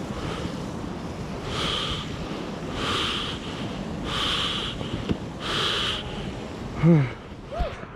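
Heavy, even breathing of a person walking uphill through snow, a hissy breath about every second and a half. Near the end come two short voiced grunts.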